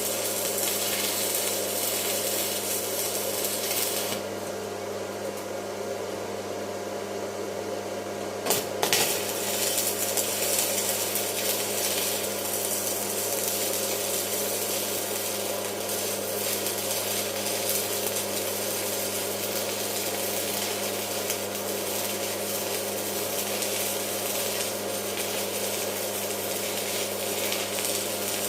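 Electric arc welding on vehicle metalwork: a steady crackling hiss over a constant hum. The crackle stops for about four seconds and starts again after a sharp click.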